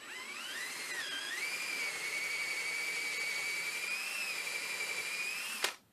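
Power drill with a 7/16-inch bit enlarging a tremolo bushing hole in a guitar body: a high motor whine that rises as it spins up, dips briefly about a second in, then holds steady and cuts off sharply near the end.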